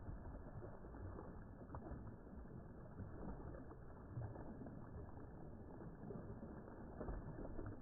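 Paddle strokes from a surf ski's wing paddle, the blades dipping and pulling through water with small, irregular splashes over a low rumble.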